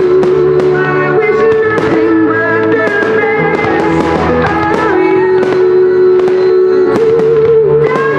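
Music accompanying a fireworks display, with held melodic notes and guitar, and sharp firework reports from bursting shells sounding over it at irregular moments.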